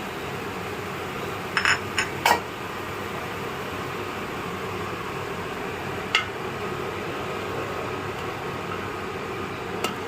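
Metal kitchen utensils clinking against a cooking pot: a quick run of four clinks about a second and a half in, one more around six seconds, and one near the end, over a steady hiss.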